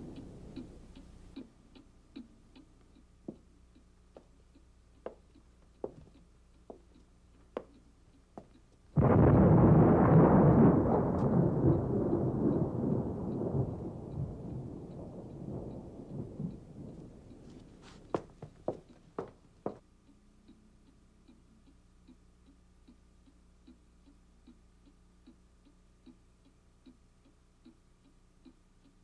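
A clock ticking steadily. About nine seconds in, a sudden clap of thunder breaks in and rumbles away over several seconds. A few sharper knocks follow after it.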